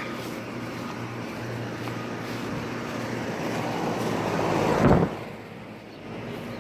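Outdoor central air-conditioner condenser units running with a steady low hum. A rush of noise builds and peaks sharply about five seconds in, then falls away.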